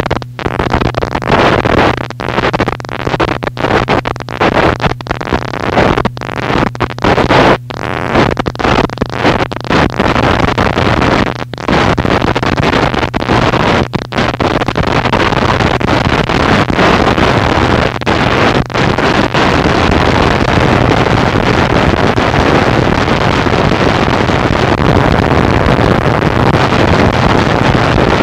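Harsh noise wall: a loud, dense wall of distorted static with a low steady hum beneath it. It is cut by many brief, sudden dropouts over roughly the first twenty seconds, then runs on unbroken.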